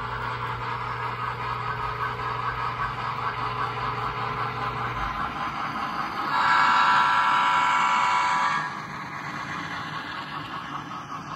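HO-scale model trains running on the track with a steady hum. About six seconds in, an F7 diesel's DCC sound decoder blows one horn blast of about two seconds, the loudest sound.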